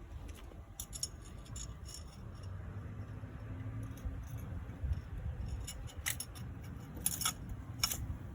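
Light metallic clicks and clinks, in a few short clusters, over a low steady rumble.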